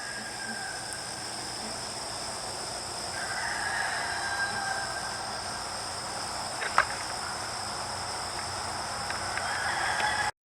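Roosters crowing at a distance: one long crow about three seconds in and another near the end, over a steady high-pitched background drone. A single sharp click comes about two-thirds of the way through.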